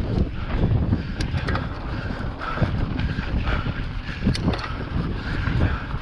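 Wind buffeting the microphone of an on-board camera on a mountain bike in motion, with scattered clicks and rattles from the bike as it rides over the trail.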